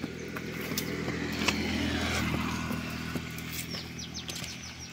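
A motor vehicle engine running steadily, growing louder to about two seconds in and then fading away, over footsteps on a dry dirt path. A quick run of high bird chirps comes near the end.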